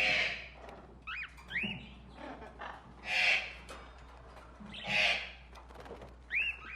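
Tropical pet-shop birds calling: three loud, harsh squawks, with short whistled notes that rise and fall between them, over a steady low hum.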